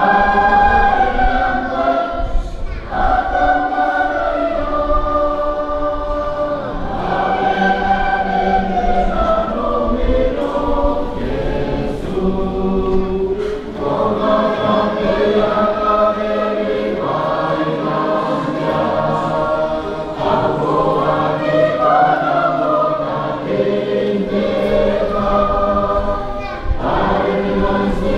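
A choir singing in several-part harmony, in phrases a few seconds long with short breaks between them.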